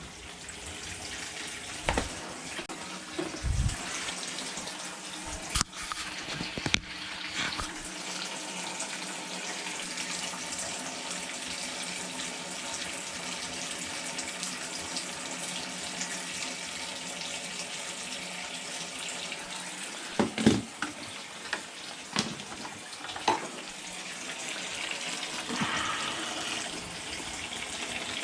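Water running steadily from an open tap while the plumbing is drained down, with a few short knocks and clunks now and then.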